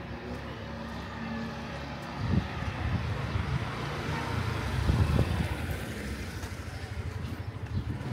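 A motorcycle rides up the street and passes close by. Its small engine's hum swells and is loudest about five seconds in.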